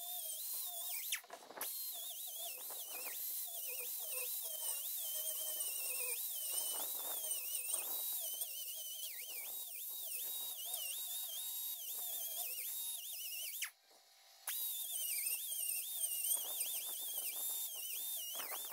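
Pneumatic right-angle grinder with a small sanding disc taking rust off the steel of an old hewing axe head: a high whine that dips in pitch and recovers again and again as the disc is pressed in and eased off, over a steady hiss. It stops briefly about a second in and again for under a second about three-quarters of the way through.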